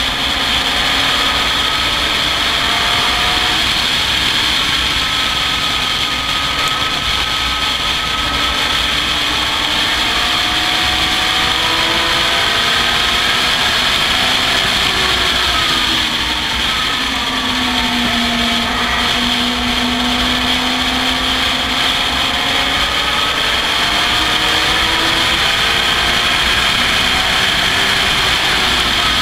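Racing car engine heard from an onboard camera in an open cockpit, running hard with a slowly rising note. About fifteen seconds in the pitch falls away and holds low for a few seconds, then climbs again, all under a steady rushing hiss.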